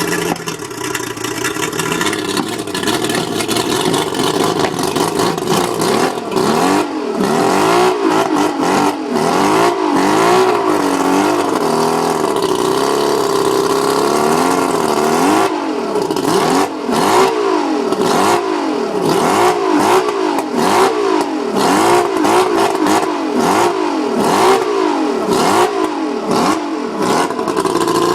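Mercury 135 outboard motor running rough, its speed rising and falling about once a second, broken by brief stumbles: a misfire that the owner thinks may be the spark plugs.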